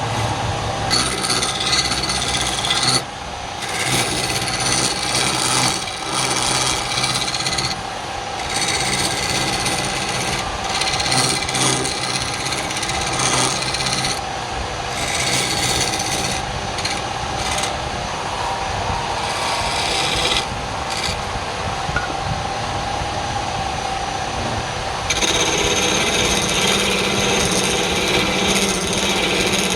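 Wood lathe running while a tool scrapes and cuts the spinning wood, a steady motor hum under a rough rasping noise. The texture changes abruptly several times.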